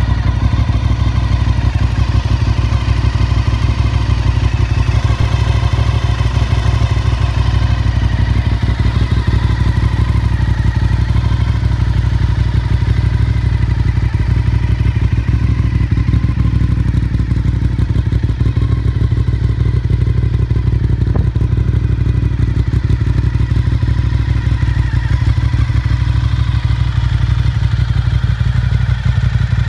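Honda RC51's 1000 cc 90-degree V-twin idling steadily in neutral through a Yoshimura slip-on exhaust, with an even, unchanging engine note.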